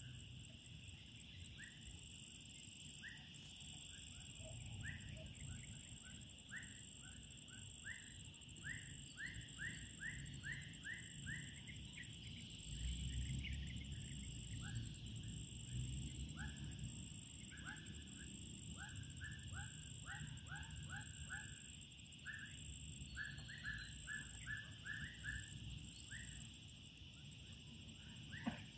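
Riverbank insect chorus at dusk, a steady high-pitched drone, with runs of short quick chirps from another animal, several a second. A low rumble swells for a couple of seconds about halfway through.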